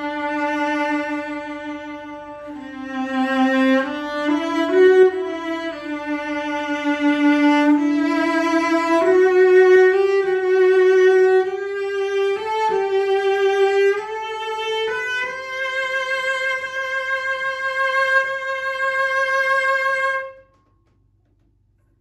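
Solo bowed cello, a c. 1910 E.R. Schmidt workshop cello from Markneukirchen strung with Larsen Aurora strings, playing a slow melody whose notes climb gradually higher. It ends on a long held note with vibrato that stops near the end.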